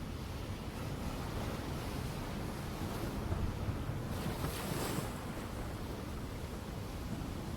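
Ocean waves breaking on a shore: a steady low rumble of surf, with one wave crashing more loudly, in a hissing surge, about four to five seconds in.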